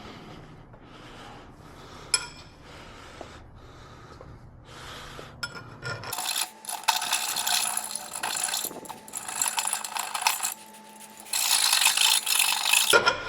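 Scraping and rasping on the metal control arm as the rough cut edges of the bushing bore are cleaned up. It starts as soft, repeated strokes with a sharp click about two seconds in, then turns into two louder, harsher stretches of scraping in the second half with a short break between them.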